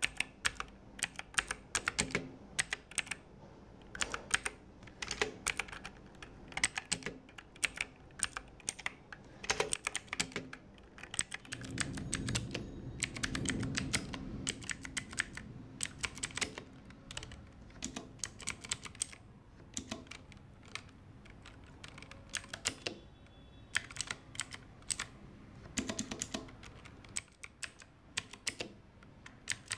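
Clicky blue-switch mechanical keyboard being typed on in quick runs of keystrokes with short pauses between them. A low rumble swells under the typing for a few seconds midway.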